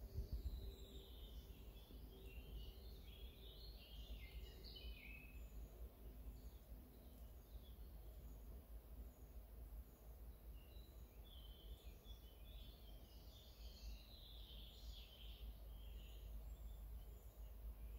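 Faint birdsong: two long runs of quick warbled phrases, one in the first five seconds and another from about ten to sixteen seconds in, with short high chirps repeating throughout over a low steady rumble.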